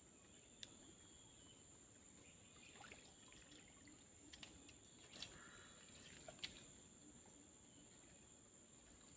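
Near silence: faint outdoor background with a steady high-pitched insect drone and a few small scattered clicks.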